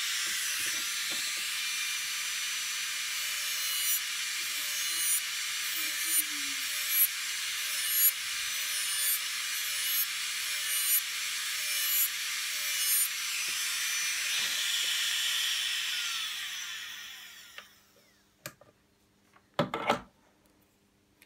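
Saeshin Strong 210 nail drill with its 105L handpiece running at high speed in a steady high whine, its bit grinding gel polish off a nail with about one stroke a second. The motor winds down about three quarters of the way through, followed by a few clicks of the handpiece being handled.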